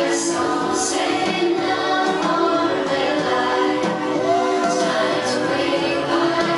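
Music of held, layered tones with a choir-like singing voice, one line gliding up and down about four seconds in.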